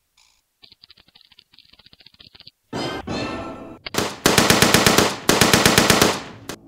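Automatic machine-gun fire in two long bursts of about ten shots a second, the first starting about four seconds in and the second following after a short break. A fainter fast clicking comes before it.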